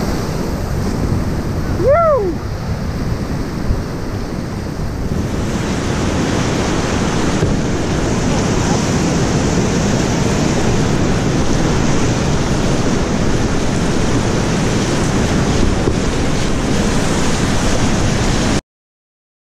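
Whitewater rapids rushing and churning around a solo open canoe, with wind buffeting the microphone. About two seconds in, a short call rises and falls in pitch over the water noise; the sound cuts off abruptly near the end.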